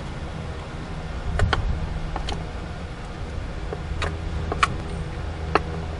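Steady low hum with a few sharp clicks and ticks scattered through it.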